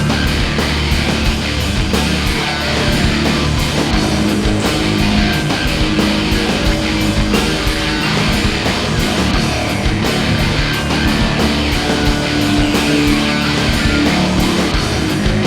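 Loud heavy-metal style rock music with distorted electric guitar and a fast, steady beat.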